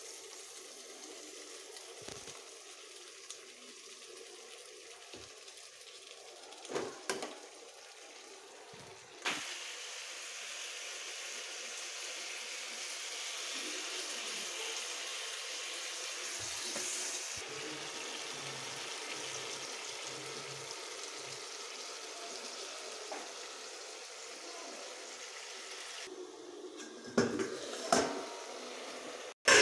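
Potato and cauliflower sizzling in a wok-style pan, a steady hiss, with a few knocks of a metal spoon against the pan, two close together near the end.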